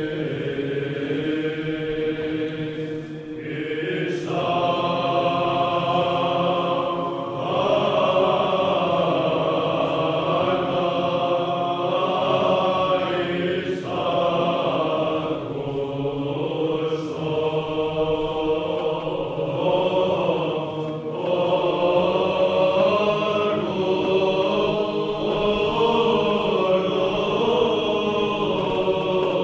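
Orthodox church chant: voices singing a slow melody over a steady held note, in long phrases with brief breaks between them.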